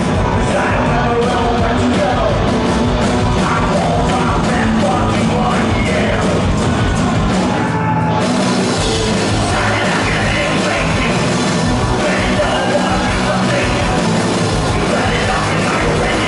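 Rock band playing live, electric guitars and drums loud and continuous, with a singer's vocals over the band.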